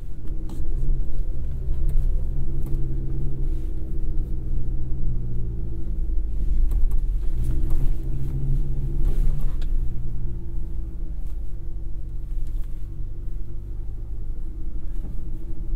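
2024 GMC Canyon AT4X AEV's 2.7-litre turbocharged inline-four running under throttle, heard from inside the cab, with the tyres crackling over a rocky dirt trail. The engine note dips and climbs again about seven seconds in, then eases off near ten seconds.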